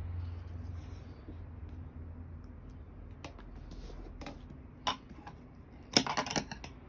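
Scattered light clicks and taps of small objects being handled, ending in a quick cluster of clicks, over a low hum that fades during the first second.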